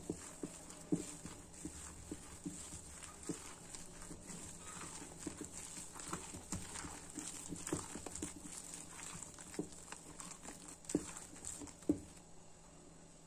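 A hand squishing and kneading thick urad dal batter with chopped onion in a steel bowl: irregular wet squelches and small knocks against the bowl, a few louder ones near the end.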